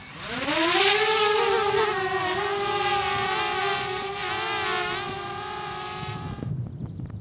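Small quadcopter drone taking off: its propellers spin up with a whine that rises in pitch over about a second, then settle into a steady, slightly wavering buzz as it climbs. The sound cuts off suddenly near the end.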